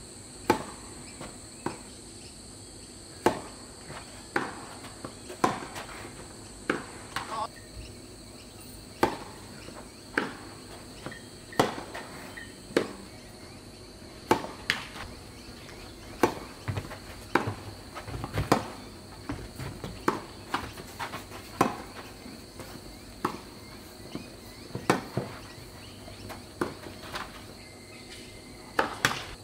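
Tennis balls struck by racquets and bouncing on the court during rallies: sharp pops about once a second, some in quick pairs. Insects keep up a steady high-pitched drone underneath.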